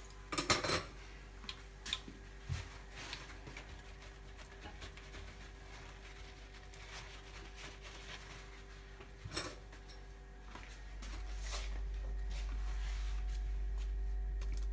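A few light clicks and knocks from kitchen handling: utensils, paper towel and fried food being moved about. A steady low hum comes in about eleven seconds in.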